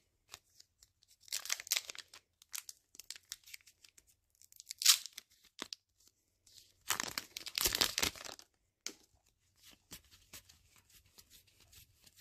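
Foil wrapper of a Pokémon trading-card booster pack being torn open by hand, crinkling and ripping in several bursts. The sharpest rip comes about five seconds in, and a longer stretch of tearing follows a couple of seconds later.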